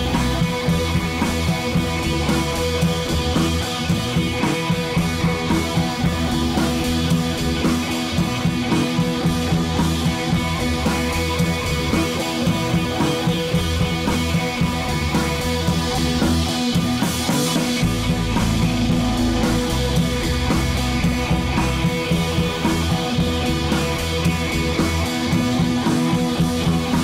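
Background rock music with guitar and drums and a steady beat.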